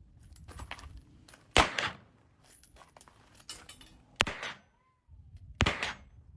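Three single gunshots from a select-fire gun fired on semi-automatic, spaced about one to two and a half seconds apart, each with a short echo. A faint falling whine follows the second shot.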